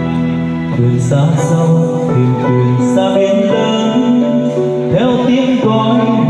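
A man singing into a microphone over an instrumental backing track, amplified through a PA system. Steady held chords run throughout, and the wavering vocal line comes in about a second in.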